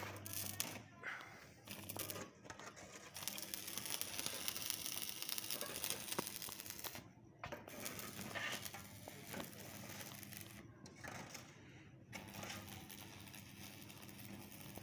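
Arc welding on a steel sheet gate: the welding arc crackling and hissing in runs of a few seconds, with short pauses between them.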